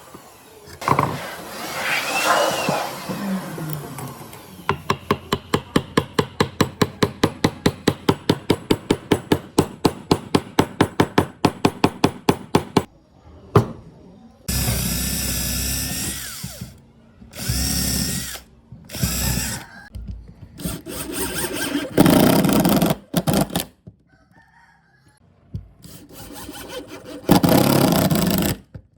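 A run of rapid, evenly spaced knocks on wood, about four a second, lasting some eight seconds. Then an electric drill runs in a series of short bursts, each starting with a rising whine and stopping abruptly.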